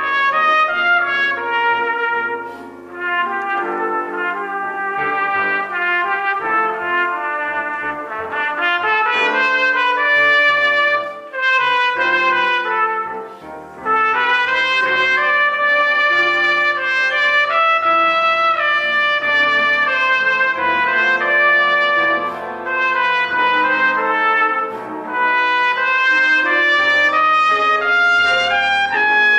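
Trumpet playing a classical melody with grand piano accompaniment, notes following one another quickly, with a few short breaks in the trumpet line.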